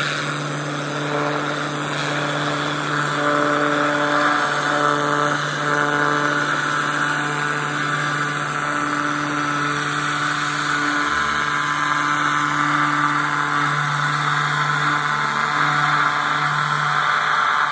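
Pressure washer running with a steady hum while its jet hisses against the fence's kick boards, cleaning them off.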